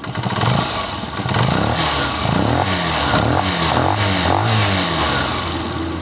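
Honda CG125 (2022 model) single-cylinder four-stroke pushrod engine revved up and down several times. It gives only its own base note with no extra tapping or rattle; the mechanic calls it completely noiseless after his repair of the engine-noise problem.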